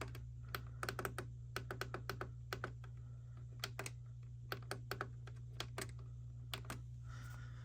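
Keys clicking in irregular runs, like typing on a keyboard, over a steady low hum.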